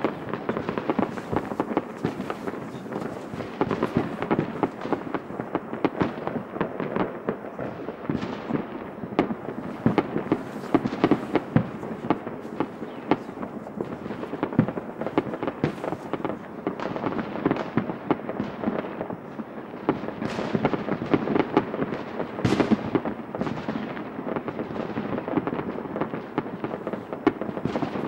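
Many fireworks going off at once, a dense, unbroken stream of overlapping bangs and crackles, with a few sharper, louder reports about three quarters of the way through.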